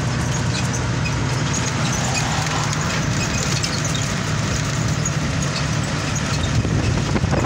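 Engine and road noise of a vehicle driving at speed, heard from inside the cab: a steady low hum under an even rushing.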